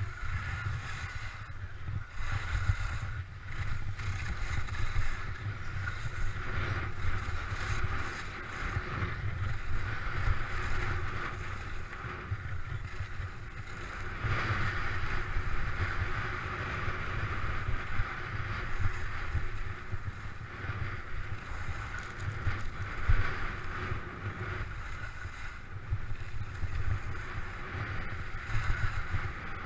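Skis scraping and hissing over firm snow on a fast descent, swelling and fading every few seconds, under a low rumble of wind buffeting the microphone.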